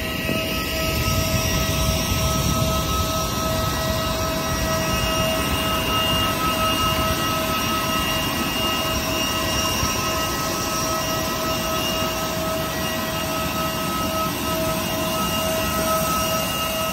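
Jet aircraft turbine whining steadily on the apron: several held high tones over a loud rushing noise.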